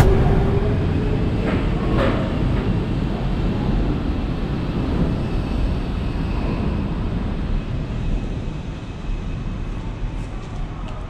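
Chiba Urban Monorail suspended train car pulling out of the station and running past: a low rumble with a motor whine rising over the first two seconds, fading as the car moves away along its overhead beam.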